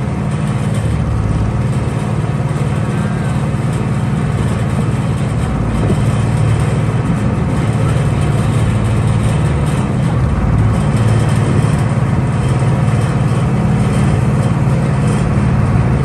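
A vehicle engine running steadily with a low, even hum.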